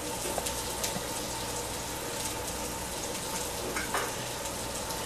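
Hot oil sizzling steadily in a frying pan as veggie chicken nuggets and grated potatoes fry, with a few scattered crackles.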